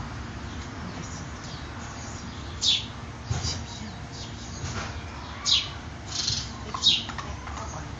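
Birds chirping: several short, high, falling chirps, spaced a second or more apart.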